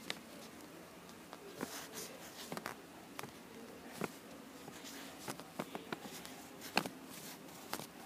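Pencil writing on paper: short, uneven scratching strokes with a few light ticks as the tip meets the page and letters are written.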